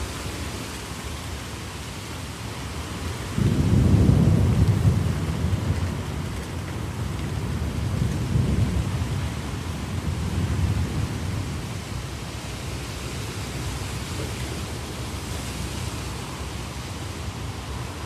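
Steady heavy rain, with thunder breaking in suddenly about three seconds in. The rumble rolls on low and swells again twice before dying back under the rain.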